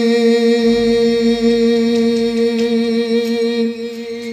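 A man's voice holding one long, steady sung note in a Kashmiri naat recitation, fading away near the end.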